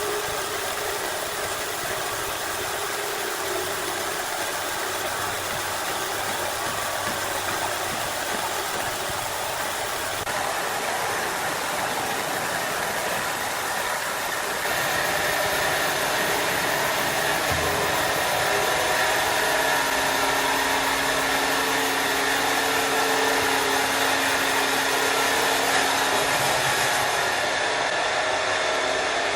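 A power saw running steadily. About halfway through it gets louder and takes on steady whining tones.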